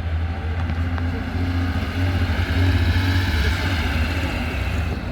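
A car's engine running as it drives past, building to its loudest about three seconds in and then fading, over a steady low engine hum.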